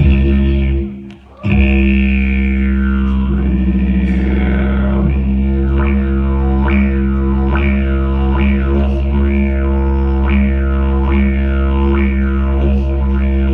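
Music: a low, steady drone from a wind instrument, its overtones sweeping up and down in a repeating pattern. The drone stops briefly about a second in, then carries on without a break.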